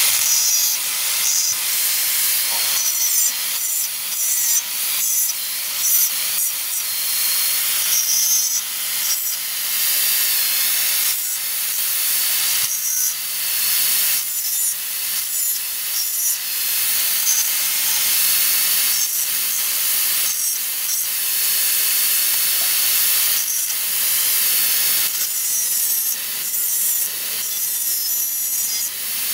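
Handheld electric angle grinder grinding a handful of small steel pieces: a harsh, steady grinding hiss that surges and dips many times as the disc bites and eases off the metal.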